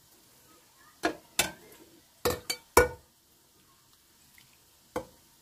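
Kitchenware being handled, with sharp clinks and knocks of glass and metal dishes: two about a second in, a quick run of three a little later, and a last one near the end.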